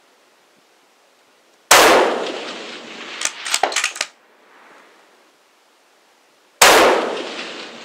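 Two 7mm PRC bolt-action rifle shots about five seconds apart, each a sharp crack with a long echoing tail. After the first shot comes a quick run of metallic clicks and a short clang.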